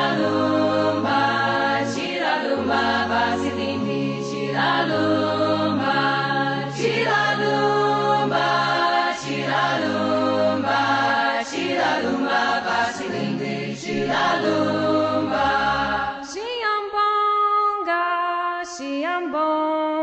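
Choir singing a song in a southern African language, with a low part holding long notes under the voices. About sixteen seconds in the low part drops out, leaving the upper voices.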